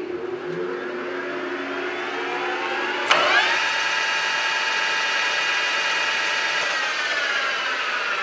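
Kingston HL4000 engine lathe's spindle drive running, with a geared whine that climbs steadily in pitch as the spindle spins up. About three seconds in there is a click and the whine jumps quickly to a steady higher pitch, then it begins to fall slowly near the end.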